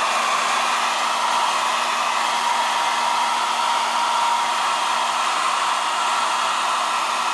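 Hand-held hair dryer running steadily on hot air: an even rush of blown air with a faint constant whine.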